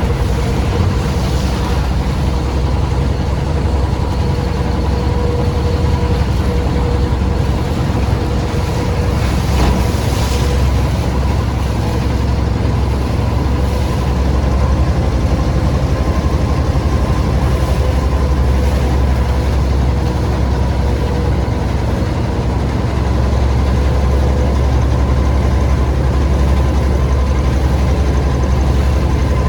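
An engine running steadily, a loud low drone with a constant hum over it.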